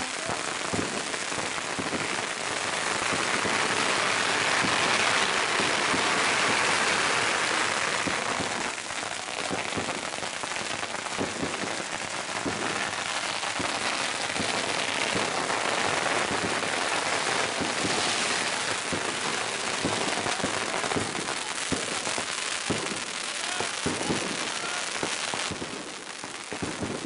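Long strings of firecrackers going off in a continuous, dense rattle of rapid bangs, loudest a few seconds in.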